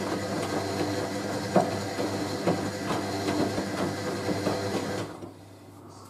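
Hoover A3060 Electronic 1100 washing machine running its wash: a steady motor hum and hiss, with the drum turning the wet load and an irregular knock every second or so. About five seconds in the noise suddenly drops to a much quieter hum as the machine goes into its heating stage.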